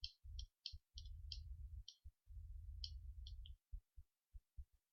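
Faint pen strokes writing out figures: about a dozen short, quick scratches, with a low rumble of the hand and surface under several of them.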